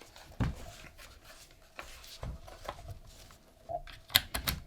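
Plastic and metal parts of an ASG Scorpion Evo airsoft gun being handled and fitted together: a soft knock, some rubbing, then a quick run of sharp clicks near the end.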